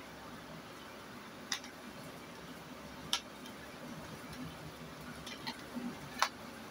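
Clear plastic clamshell tray of DDR4 RAM sticks being pried open and a module unclipped from it: sharp plastic clicks and snaps, one about a second and a half in, another about three seconds in, then a quick cluster with the loudest snap near the end.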